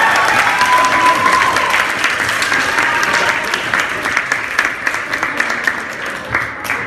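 Audience applauding, with a few voices cheering at the start; the clapping slowly dies down.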